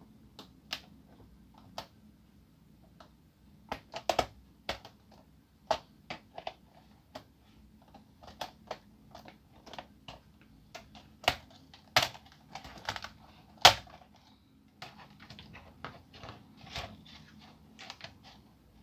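Irregular plastic clicks and snaps with a key-like clatter as an ASUS K53SD laptop keyboard is worked loose and lifted out. The loudest snaps come about two-thirds of the way through.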